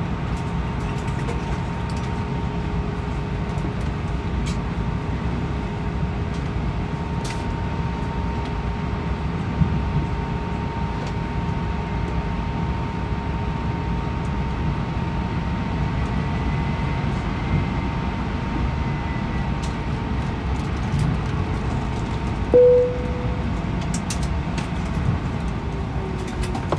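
Airbus A320 cabin noise while taxiing after landing: a steady low rumble with a constant hum. About three-quarters of the way through, a single short tone sounds, like a cabin chime.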